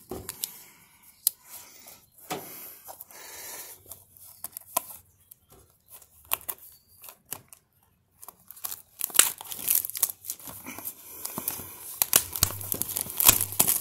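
Crinkling and rustling of the plastic shrink-wrap on a trading-card blaster box as it is handled and turned over, with scattered sharp crackles that grow busier in the second half.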